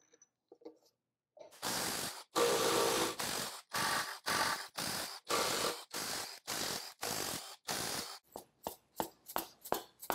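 Cordless electric ratchet spinning out the lower timing cover bolts of a VW 2.0 TSI engine in about ten short whirring spurts, followed near the end by a quick run of sharp metal clicks and taps.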